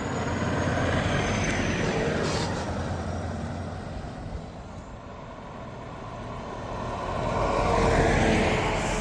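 Heavy trucks driving past, their engine and exhaust noise swelling and fading twice: one pass peaks about a second in, and a second builds toward the end.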